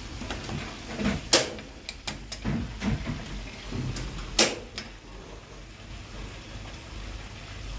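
Chicken deep-frying in a pan of hot oil with a steady sizzle, broken by a few sharp metallic knocks as the pan is handled on the gas stove's grate; the two loudest come about a second and a half in and about four and a half seconds in.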